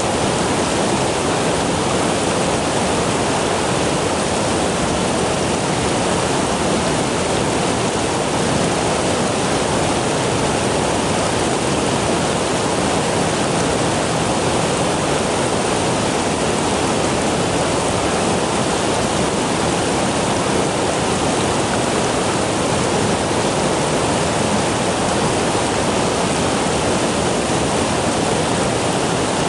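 Fast-flowing river water rushing steadily, a constant even noise with no breaks.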